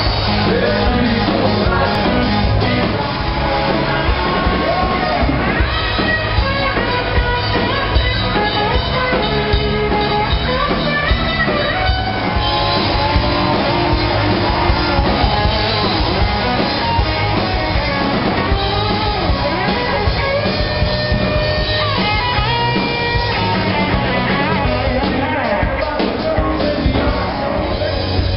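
Rock band playing: electric guitars and drums with a singing voice, loud and continuous.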